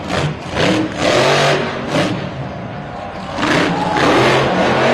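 Monster truck engine revving in repeated bursts, its pitch rising and falling with the throttle, with the loudest surges about half a second in, around two seconds in, and again near the end.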